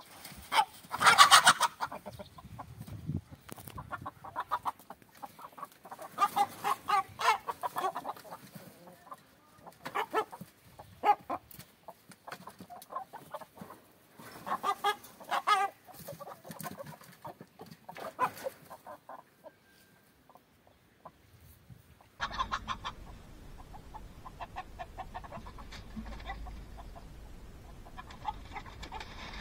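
Chickens clucking and squawking in irregular bursts, loudest about a second in. After a brief lull, the clucking goes on over a steady background noise.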